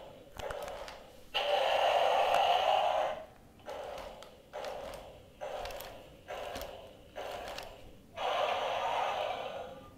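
Heavy, rhythmic breathing close to the microphone: short huffs about once a second, with two longer, louder exhalations about a second and a half in and near the end.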